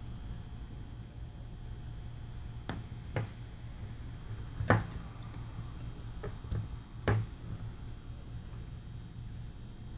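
Plastic prying picks clicking and tapping against a smartphone's glass and frame as the glass is worked loose: about five short sharp clicks, spread irregularly, over a low steady hum.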